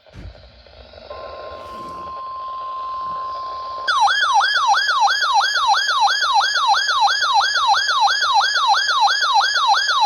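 A 12-993 weather alert radio tuned to a NOAA Weather Radio station: receiver hiss, then the station's steady weather alert tone about a second in. Near four seconds the radio's own alarm goes off, a loud siren of rapidly repeated falling sweeps, about three a second, signalling a received warning.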